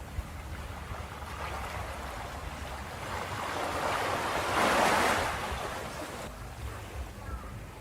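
Ocean surf washing onto a beach over a steady low rumble. One wave swells from about three seconds in, breaks loudest near the middle, then recedes.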